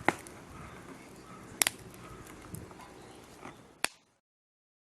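Campfire crackling, with three sharp pops over a low steady hiss; the sound cuts off abruptly about four seconds in.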